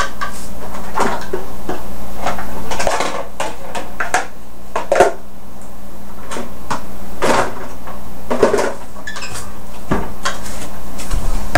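Kitchen cupboard opening and closing and dishes clattering as a mixing bowl is got out and handled: a string of irregular knocks and clinks.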